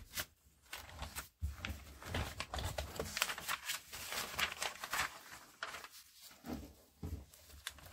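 Glossy magazine pages rustling and crinkling as they are handled and turned by hand, a string of irregular small rustles and clicks.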